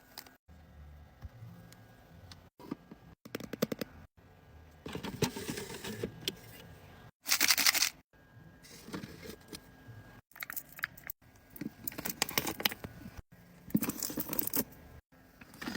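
Restocking sounds: packaged food and containers handled and set in place, with clicks, rattles, clinks and crinkling packaging in short cut segments. A louder rush of noise lasting under a second comes about seven seconds in.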